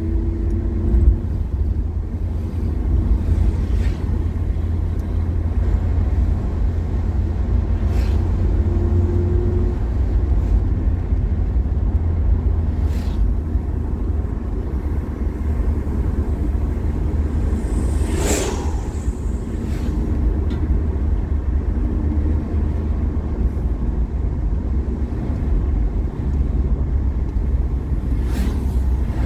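Car driving along a road: a steady low rumble of engine and tyres, with a few short clicks or knocks, the sharpest about eighteen seconds in.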